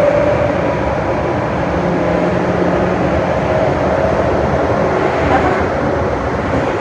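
Nagoya Subway Tsurumai Line train running through a tunnel, heard from inside the car: a steady, loud running noise with a faint steady whine on top.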